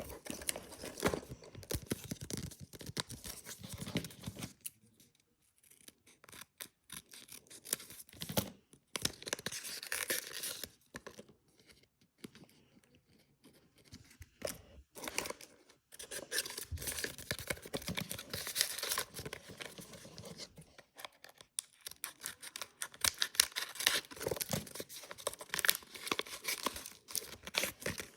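A homemade paper blind box being handled and opened: irregular bursts of paper scraping, crinkling and tearing, with short pauses between them.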